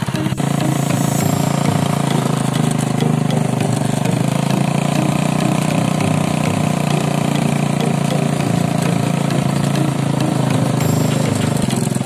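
A custom mini bobber pocket bike's small engine running steadily while the bike is ridden.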